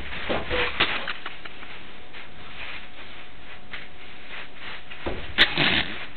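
A mattress being swung and tipped about, with faint bumps and rubbing, and one sharp knock about five seconds in, over a steady hiss.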